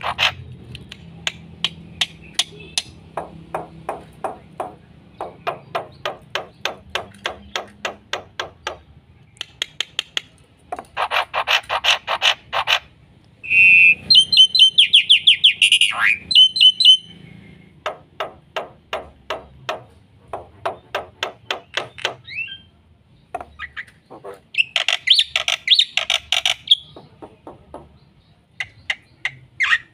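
Black-winged myna (jalak putih) in full song: runs of rapid, evenly spaced harsh chattering notes in several bouts, with a loud burst of high whistled and squeaky notes about a third of the way in.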